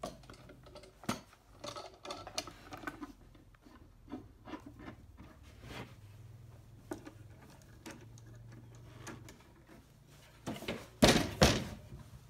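One-handed bar clamps being fitted to a wooden box and tightened: their triggers ratchet in quick runs of clicks, and the clamp bars knock against the wood, with two loud knocks near the end.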